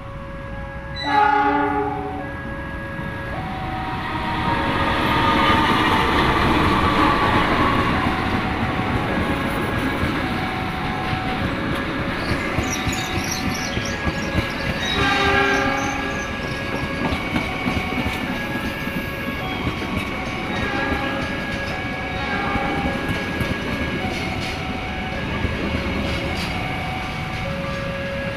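Passenger train's horn sounds loudly about a second in, then the train's rumble and wheels clattering on the rails build up and run on, with another horn note about halfway through.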